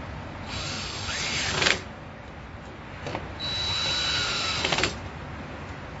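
DeWalt 20V MAX cordless drill/driver running in two short bursts, driving the screws of a power cord's clamp, its whine rising in pitch as each goes. Each burst ends in a few sharp clicks as the screw seats.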